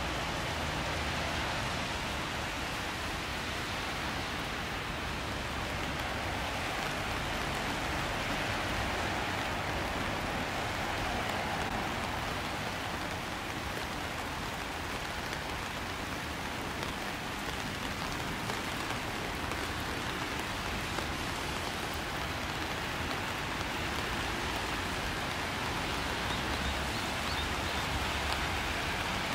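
Steady rain falling, a constant even hiss of rain on surfaces.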